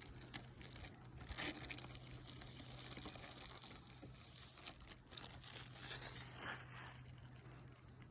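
Plastic packaging crinkling and rustling in irregular crackles as it is handled, over a steady low hum.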